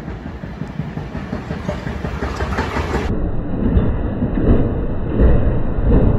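New York City subway Q train pulling into the station, its wheels rumbling on the rails and growing steadily louder as it nears. A rhythmic clacking of wheels over rail joints comes through in the second half.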